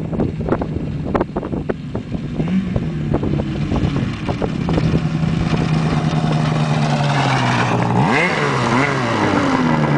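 Polaris Fusion 900 snowmobile's two-stroke engine running, growing louder from about halfway, with a quick rise and fall in pitch about eight seconds in. A few sharp knocks sound in the first two seconds.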